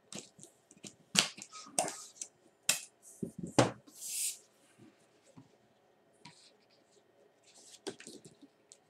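A hand pump inflating a latex modelling balloon and the balloon being handled: several sharp squeaks and clicks in the first few seconds, then a short hiss of air about four seconds in, and a few light rubber clicks near the end.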